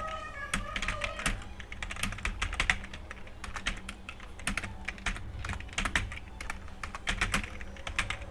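Fast touch-typing on a computer keyboard: an irregular stream of keystroke clicks, several a second, during a timed typing test.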